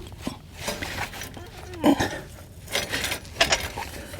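Scattered metal clicks and clinks as a tractor PTO driveshaft is worked onto the PTO shaft and its locking collar slides forward to lock it in place.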